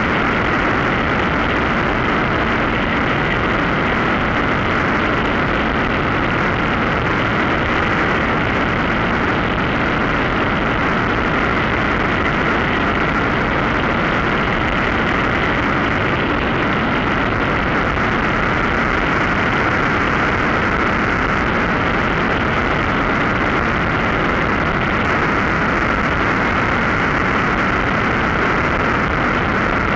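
Mosquito NRG powered hang-glider harness engine and propeller running steadily in flight, mixed with a constant rush of wind.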